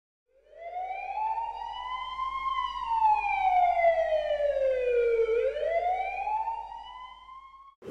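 Emergency-vehicle siren wailing: a slow tone that rises, sinks for a few seconds, then climbs again and cuts off suddenly near the end.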